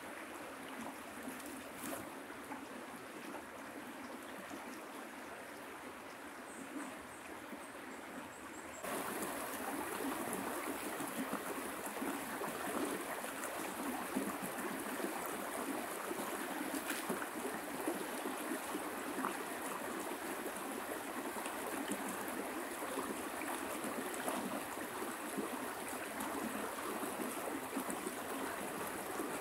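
River water flowing, a steady rush with no other sound standing out, stepping up abruptly in loudness about nine seconds in.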